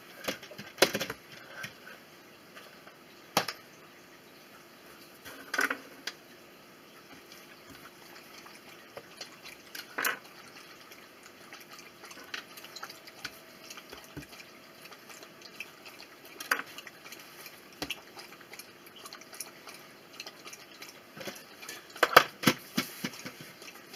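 Bread dough being divided and handled by hand on a worktop: scattered sharp taps and knocks every few seconds, with a quick cluster of them near the end.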